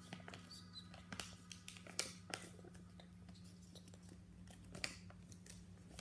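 Sheet of paper being folded and creased by hand: faint rustles and scattered sharp crinkles, the sharpest about two seconds in and again near the end, over a low steady hum.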